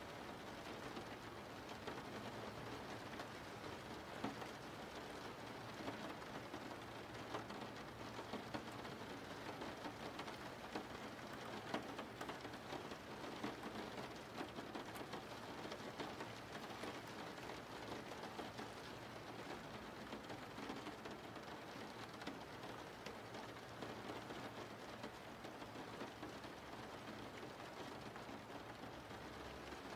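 Steady rain falling, an even hiss with scattered drop ticks.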